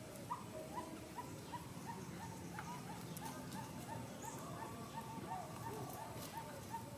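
A steady run of short chirping animal calls, about two or three a second, over a low background rumble.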